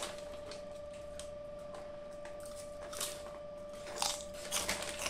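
Foil-lined potato chip packet crinkling as it is handled, with the chips inside rustling, in short crackly bursts about three seconds in and again near the end. A steady faint hum runs underneath.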